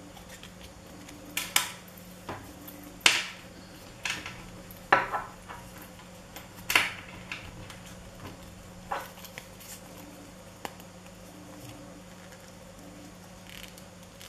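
Sharp clicks and metallic clinks of a wristwatch being handled and strapped on, its leather strap buckled at the wrist. They come about ten times, unevenly spaced, and are loudest in the first seven seconds, over a steady low hum.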